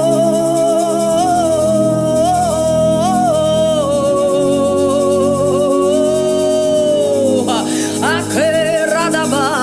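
Gospel praise-and-worship music: one voice holds a long, slightly wavering note over sustained keyboard chords, then breaks into short gliding sung phrases near the end.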